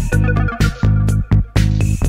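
Lo-fi electronic pop demo playing without vocals: a bass line in short pulsing notes, sharp drum hits and a higher synth melody above.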